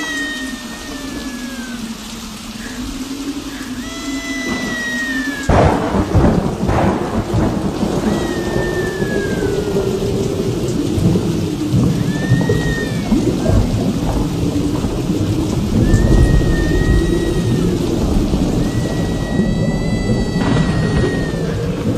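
Thunderstorm sound effect for a stage scene: steady rain and a low, slowly wavering howl, with thunder crashing about five and a half seconds in and again near sixteen seconds. A high call that falls in pitch repeats every four seconds or so.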